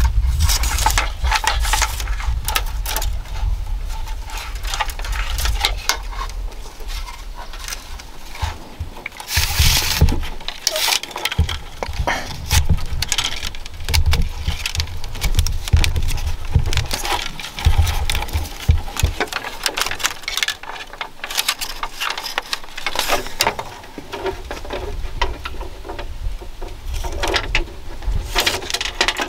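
Thin bamboo strips rustling, creaking and clicking as they are bent, pulled through and wrapped around a woven bamboo basket rim, in many small irregular clicks. A low rumble comes and goes underneath.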